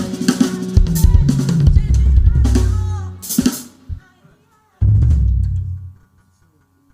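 Live band's drum kit playing the closing fill of a worship song, with cymbal crashes and deep bass notes. It stops about four seconds in, then one final bass-and-cymbal hit about five seconds in dies away within a second.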